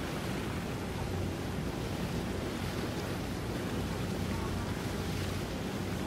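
Steady rush of wind and water noise, with a low, steady hum of a motorboat's engine beneath it.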